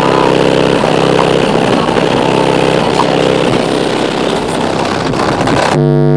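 Very loud, bass-heavy music playing through a car audio system's wall of four Sundown Audio 12-inch subwoofers, captured heavily distorted. The bass notes change in a pattern of about one a second, and the sound shifts to new held notes near the end.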